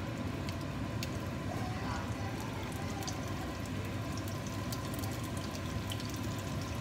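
Spring roll frying in hot oil in a pan: a steady sizzle with many small crackling pops that grow busier toward the end, over a steady low hum.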